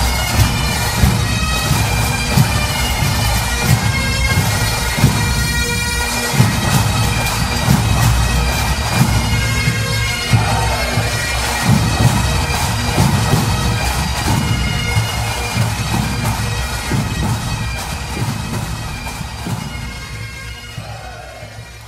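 Massed Highland bagpipes playing a march over their steady drones, with regular bass drum beats; the music fades away over the last several seconds.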